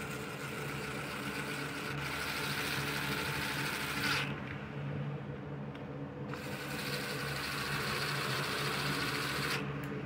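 Screws being driven into the engine cover of an Echo HC2020 hedge trimmer. There are two steady stretches of grinding: the first runs about four seconds, then comes a pause of about two seconds, then the second runs about three seconds.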